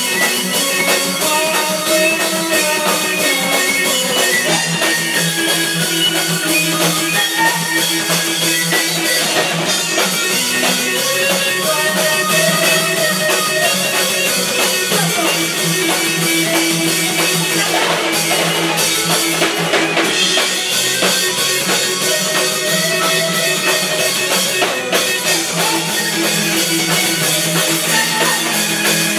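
A band playing a rock song live, with drum kit and guitar at a steady, loud level, heard as a room recording.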